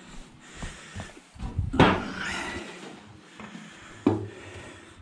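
Handling clatter: a loud clunk about two seconds in with a short ring after it, and a lighter knock about four seconds in.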